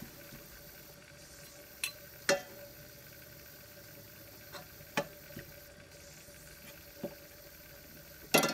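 Metal spoon stirring leaves in a stainless steel pot of broth, clinking against the pot about six times, loudest about two seconds in and in a quick cluster near the end, over a faint steady hiss.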